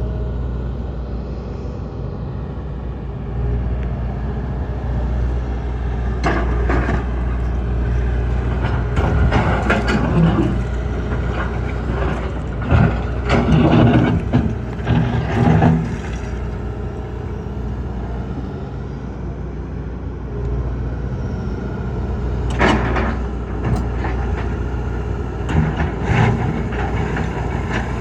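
John Deere 225D LC excavator's diesel engine running steadily under hydraulic load, with several bursts of clanking and scraping as the bucket and thumb handle chunks of concrete. The longest, loudest run of clatter comes about halfway through.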